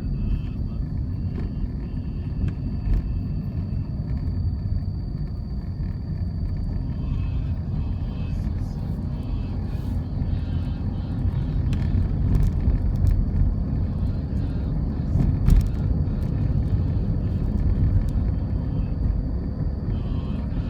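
Steady low rumble of road traffic, with a faint high steady whine and a few light clicks over it.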